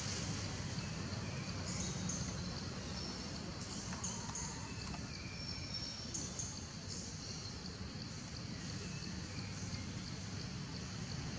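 Steady outdoor background noise with a low rumble, over which short high-pitched chirps come and go every second or so.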